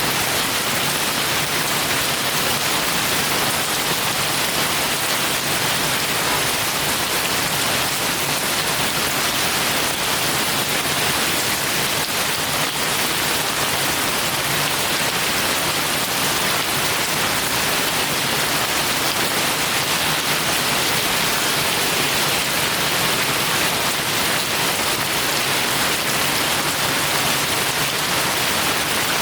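Heavy rain falling steadily, an even hiss of rainfall with no thunder or other events.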